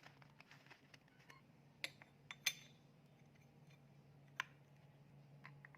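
Faint metallic clinks and taps of compressor parts being handled as the front suction valve plate is fitted over its guide pins, a few sharp clicks about two seconds in and again near four and a half seconds, over a faint steady hum.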